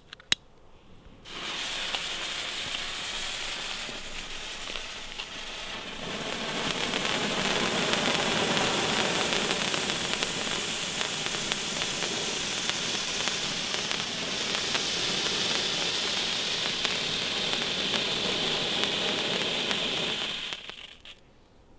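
Comet Feuerdrachen handheld firework fountain burning with a steady hiss, after a few brief clicks. It catches about a second in, grows stronger a few seconds later and dies away near the end.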